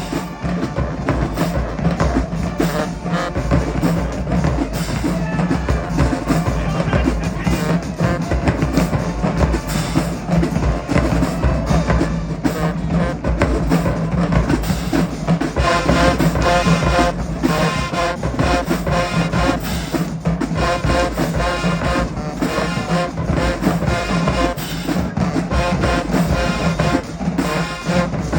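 High school marching band playing: a drumline with bass drums beating throughout, the horns playing more strongly from a little past the middle.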